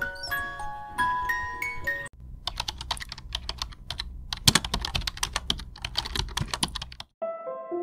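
A short run of rising chime notes, then about five seconds of rapid computer-keyboard typing clicks, a sound effect for text being typed out. Music with sustained tones begins near the end.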